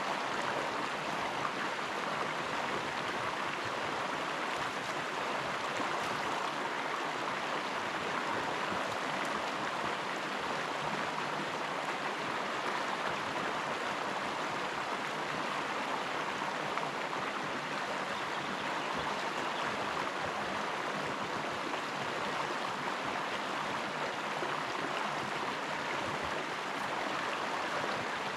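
River water running, a steady rush with no break.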